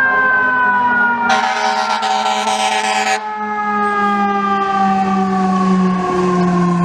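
Fire apparatus siren winding up and then slowly falling in pitch as it coasts down. A blast of about two seconds from an air horn comes over it near the start.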